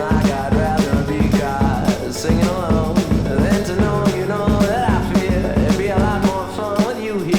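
Indie rock song played from a 7-inch vinyl single: a steady drum beat, bass and a singing voice over a full band.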